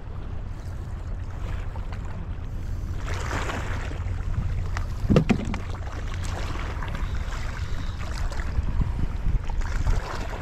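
Wind rumbling on the microphone, with small waves washing against the rocks. A short knock comes about five seconds in.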